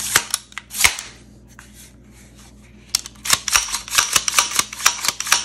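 Kel-Tec CMR-30 rifle's action and controls clicking and snapping as it is function-checked after reassembly. A few sharp clicks in the first second, a pause of about two seconds, then a quick run of clicks and snaps.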